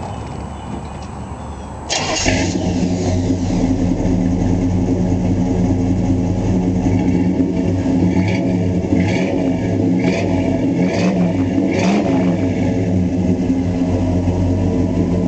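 1964 Chevy Malibu's original 283 V8 with two-barrel carburettor catching about two seconds in and settling into a steady idle, with a few short bursts of higher sound between about eight and twelve seconds in.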